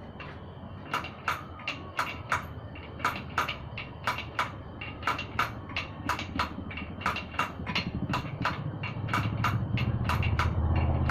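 A run of sharp knocks or taps, about three a second and slightly uneven, with a low rumble building up under them in the last few seconds.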